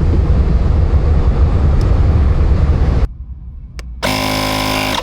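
Portable electric tyre inflator pump running hard as it pumps up a motorcycle's slowly leaking rear tyre, then cutting off abruptly about three seconds in. About a second later a buzzing tone sounds for about a second.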